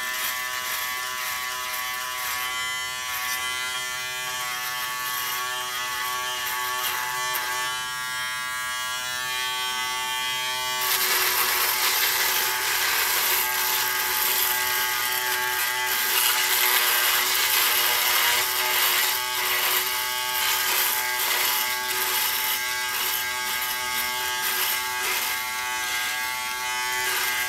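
Remington Wetech PF7580 foil shaver running with a steady buzz while shaving stubble. About eleven seconds in the sound turns louder and raspier as the cutters bite into the whiskers.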